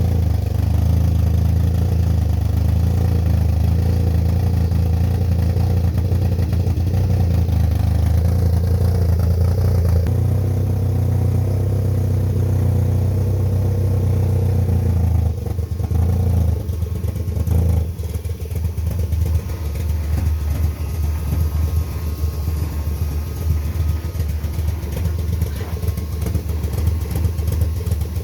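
VW Citi Golf four-cylinder engine, fitted with a 2-litre Polo head and aftermarket engine management, idling after a cold start. It runs steadily at first; about halfway through it drops lower and the idle turns uneven and lumpy, a rough idle: the engine doesn't hold its idle by itself.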